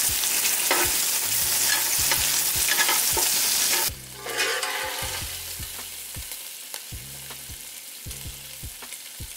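Smoked beef sausage frying in oil in a skillet: a loud, steady sizzle that drops off suddenly about four seconds in. It gives way to a quieter sizzle with a utensil clicking and stirring in the pan.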